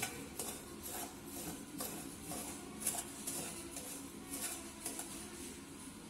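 Metal spoon scraping and clinking against a nonstick wok while stirring dry semolina, in irregular strokes about every half second to second.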